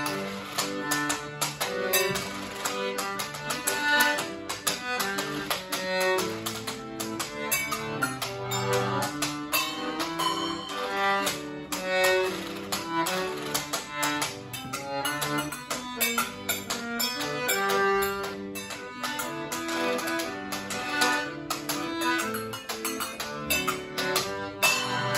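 Accordion playing a tune, with rhythmic washboard percussion and small cymbals and bells clattering along in a chindon-style duo.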